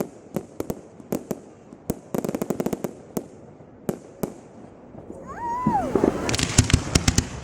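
Fireworks exploding at a public display: single sharp bangs spaced out, a quick rattle of small reports about two seconds in, then a brief whistle that rises and falls, followed by a denser, louder run of bangs and crackling.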